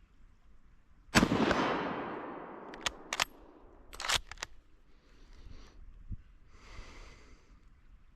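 A single shot from a 1918 Gewehr 98 bolt-action rifle firing 8x57 Mauser surplus ammunition, with a long echoing tail. It is followed by a run of sharp metallic clicks as the bolt is worked.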